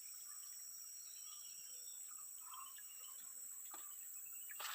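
Faint outdoor ambience: a steady high-pitched insect drone with scattered faint bird chirps, and a light tap near the end.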